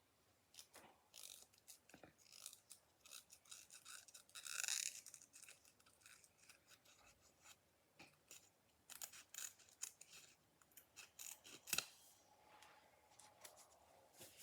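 Scissors cutting the fabric tag off a plush toy: a run of quiet, irregular snips and scrapes, with one longer, louder scrape about four and a half seconds in.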